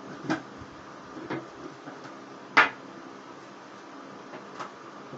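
Metal clicks and clanks of a hand tool gripping and prying at the lid of a metal money box: four sharp knocks, the loudest about two and a half seconds in, over a faint steady hum.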